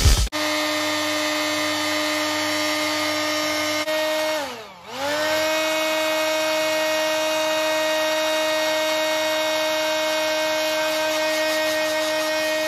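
Small electric motor of a hot-air blower running with a steady hum. About four seconds in it winds down in pitch and quickly spins back up to the same steady hum.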